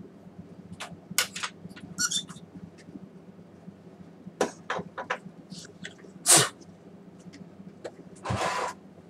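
Clicks and knocks of small plastic and metal projector parts being handled on a workbench, the loudest a sharp knock about six seconds in, then a short scraping rustle near the end, over a steady low hum.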